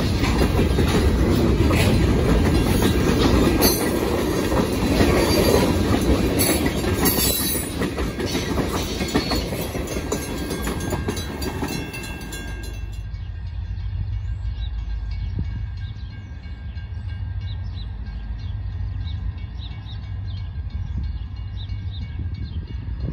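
Freight train of tank cars and covered hoppers rolling past, wheels clicking over rail joints. About 13 seconds in, this gives way abruptly to a quieter low rumble with faint regular high ticks.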